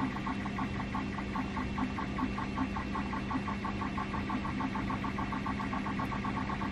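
A machine running: a steady hum with a higher tone that pulses regularly several times a second.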